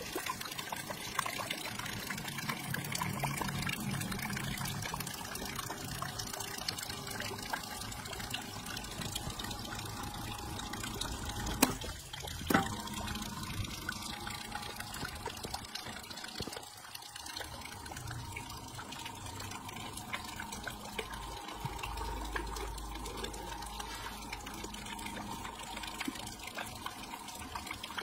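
Water splashing and trickling steadily as a wheel of plastic cups churns through a tub of water. Two sharp clicks come close together about halfway through.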